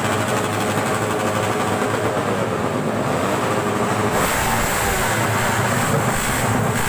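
Motorcycle engines running and revving at a loud, steady level. A low rumble joins about four seconds in.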